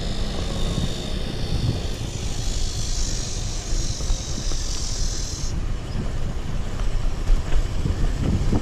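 Wind rumbling on an action camera's microphone while riding a bicycle, a steady low buffeting noise. A steady high hiss joins it for a few seconds in the middle and cuts off suddenly about five and a half seconds in.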